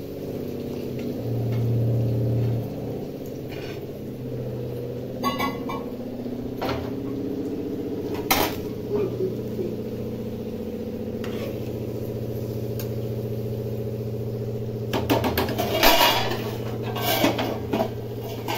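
A metal spoon knocking and scraping against a metal kadai of curry: a few single clinks in the middle, then a burst of clatter near the end, over a steady low hum.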